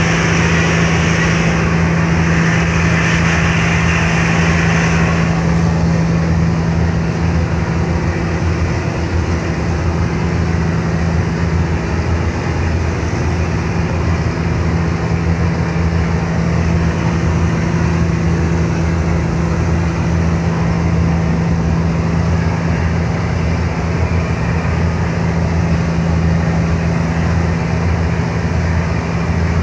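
Car ferry's engines running steadily under way, a low, even drone, over a rushing hiss that is louder for the first five seconds.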